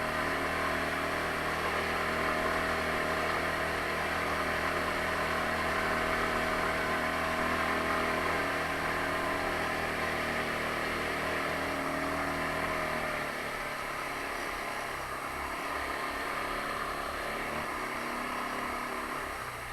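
Taotao 150cc ATV's single-cylinder four-stroke engine running steadily under way on a trail. About two-thirds through, the steady drone falls away to a quieter, uneven running.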